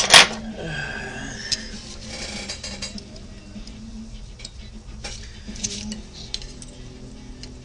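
Small metal parts and hand tools clinking and clicking against each other and the bench while an RC car's chassis and front end are taken apart, with one sharper, louder clack just after the start.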